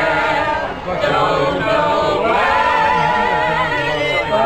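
A mixed group of men's and women's voices singing together without accompaniment. In the second half one voice holds a long note with vibrato.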